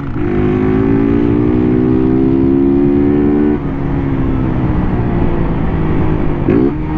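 Honda motorcycle engine pulling under throttle, its pitch rising steadily for about three and a half seconds and then dropping as the throttle eases; near the end it revs up quickly again. A steady low rushing noise runs underneath.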